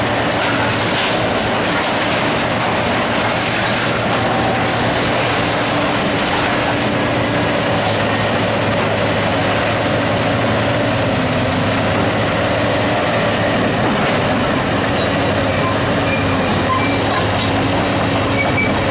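John Deere 330C LC excavator's diesel engine and hydraulics running steadily under load while its bucket tears down a building's steel roof framing, with metal clanking and scraping and debris clattering down.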